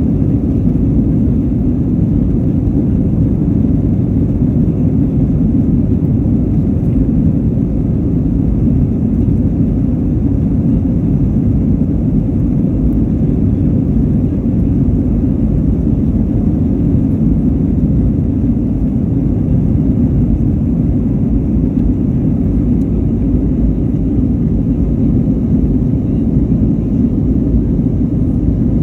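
Steady low rumble of a jet airliner climbing after take-off, engine and airflow noise heard from inside the cabin.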